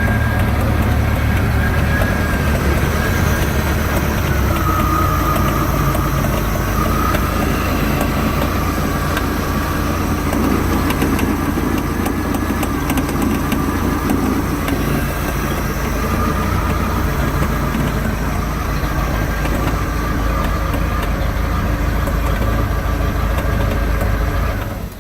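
Mercruiser 140 3.0-litre four-cylinder sterndrive engine running steadily with a clicking noise that seems to come from the rear of the motor. The noise remains even with a new coupler, outdrive and gimbal bearing, and its cause is unknown. The engine shuts off suddenly near the end.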